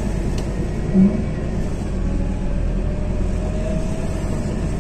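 Steady low rumble of engine and tyres heard inside the cabin of a moving Scania CityWide 12LF CNG city bus. A short low bump comes about a second in.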